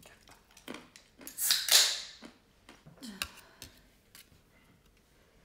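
A can of Budweiser gives a loud fizzing hiss of about a second, a little over a second in, among small clicks and knocks of the can, glass and tableware being handled on the table.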